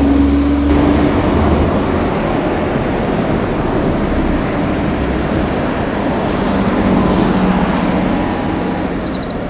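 Steady road-traffic noise, with a low rumble in the first second or so as a vehicle passes. A few faint short chirps come near the end.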